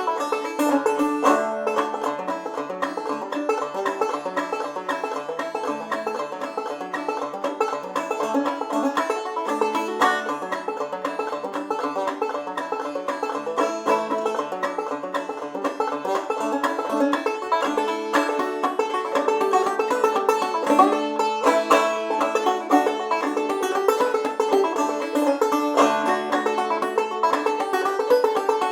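Five-string banjo played clawhammer style in double D tuning: a steady, continuous old-time tune, with brisk picked notes over a ringing low drone and short bass notes moving beneath.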